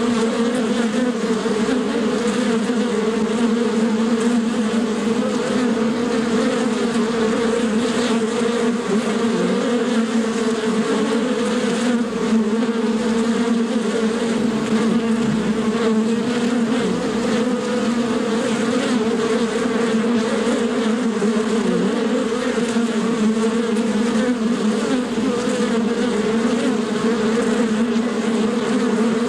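Bee wings buzzing in flight: a continuous, steady hum whose pitch wavers slightly.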